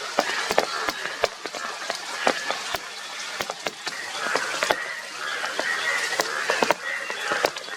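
Indian bullfrogs calling in a chorus, with many irregular sharp clicks throughout; the calling grows stronger about four seconds in.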